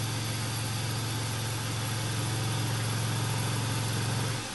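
Milling machine spindle running with a steady low hum while a bit in the drill chuck drills the first hole in an aluminium plate. It cuts off near the end as the machine is switched off.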